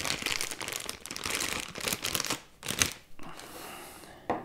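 Thin plastic bag crinkling and crackling as a microphone capsule is unwrapped by hand, dense for the first two seconds or so. Then a few sharper clicks of handling, and a quieter spell.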